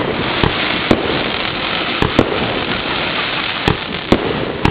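Fireworks going off: about seven sharp bangs at irregular intervals, some in quick pairs, over a dense, continuous noise of the display.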